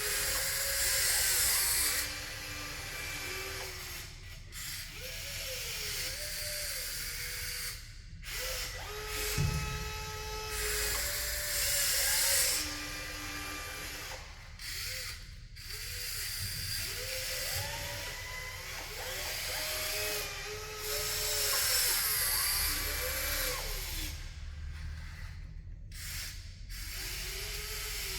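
Electric motors and gearing of radio-controlled construction models whining. The pitch rises and falls again and again as the motors start, speed up and stop, under a high hiss that swells and fades several times.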